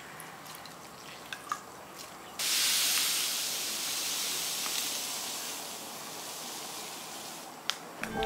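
Granulated sugar pouring in a steady stream into a small ceramic bowl: a hiss that starts abruptly about two and a half seconds in and runs about five seconds, fading a little toward the end. Before it, a few faint water drips and small clicks from a cloth bag of ai yu seeds being squeezed over a bowl of water.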